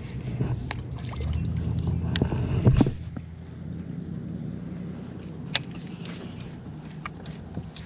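Steady low hum of a bass boat's electric trolling motor, louder for a moment early on, with a sharp knock about three seconds in. Light clicks from the baitcasting reel and rod come now and then as the topwater bait is reeled in.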